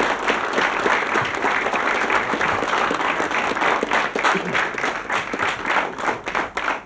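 Studio audience applauding, the clapping thinning out and fading near the end.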